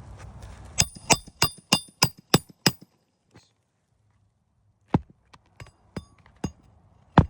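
Hammer striking roofing nails with a ringing metallic clink: a quick run of about seven blows, then a pause, a few lighter taps, and one hard blow near the end.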